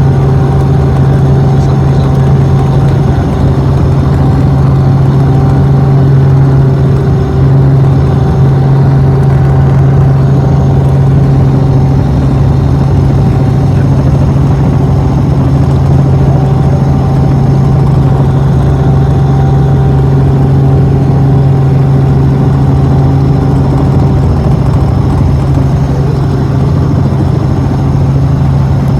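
Aircraft engine droning steadily from inside the cabin: a loud, constant low hum with no change in pitch.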